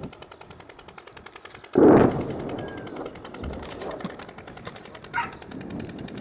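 A distant explosion about two seconds in, a sudden heavy blast that rolls and fades over the next second or so, over a faint fast, regular ticking. A short, higher-pitched call follows about five seconds in.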